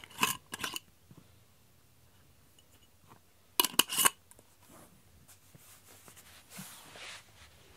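Metal screw lid of a glass jar being handled and turned: sharp clicks and scrapes in two clusters, the loudest a run of four clicks about three and a half seconds in. A softer rustle follows near the end.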